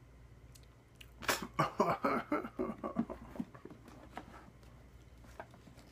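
A man laughing without words in a quick run of short bursts from about a second in, fading out after about three and a half seconds.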